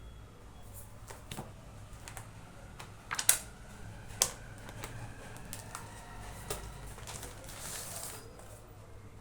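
Books and packaging being handled: scattered sharp taps and clicks, loudest in a quick cluster about three seconds in and a single one a second later, with a brief soft rustle near the end.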